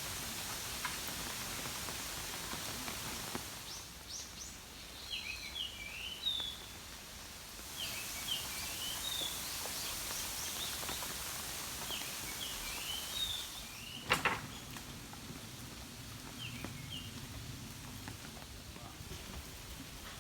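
Light rain hissing, heavier at times and easing off between, while a small bird calls in short chirping phrases several times. A sharp click about fourteen seconds in is the loudest sound, followed by a low rumble.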